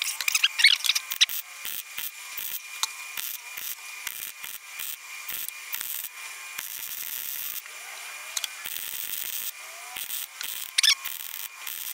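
Electric arc welding on thin, rusted fender-well sheet metal: the arc crackles and sizzles in irregular runs, with short breaks between passes. The weld is not fusing to the thin base metal.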